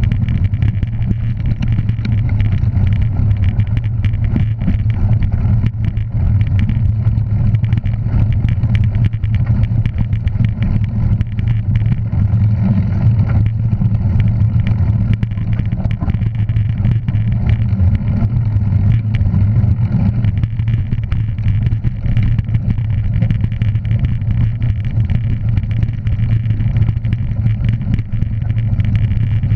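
A motor vehicle's engine running at a steady speed, a constant low drone with no revving up or down, mixed with continuous rumbling and crackling noise.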